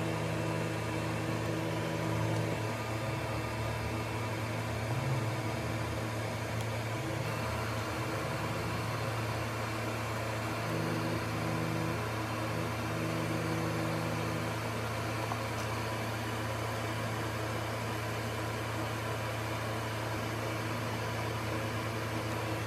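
A steady low hum over an even hiss, unchanging throughout, like a small electric motor or fan running.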